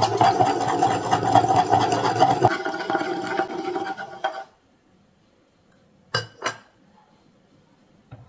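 Glass jar swirled rapidly upside down on a floured wooden chakla board, rattling and clinking as it rolls a lump of wheat-flour dough into a ball; it stops about four and a half seconds in. Two short knocks follow about two seconds later.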